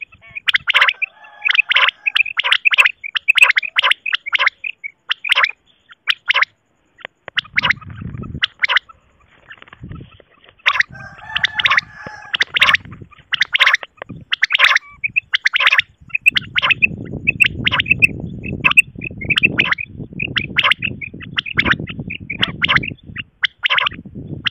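Quail calling: runs of short, sharp chirping notes repeated over and over, with a low rumbling noise underneath for stretches in the middle and the second half.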